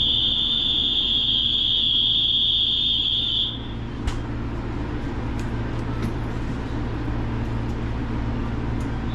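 High, steady electronic buzzer tone from the station platform signal, lasting about three and a half seconds and then cutting off. A steady low hum from the standing electric sleeper trains runs underneath, with a single sharp click shortly after the buzzer stops.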